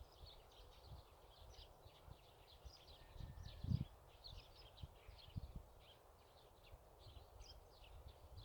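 Faint chorus of small birds chirping in quick, high-pitched bursts, over a soft low rumble with a few dull thumps, the most noticeable a little under four seconds in.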